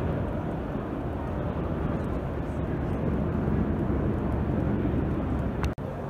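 Steady low rumbling background din of a busy exhibition hall, with no distinct machine tone or clear voices; it drops out for an instant near the end.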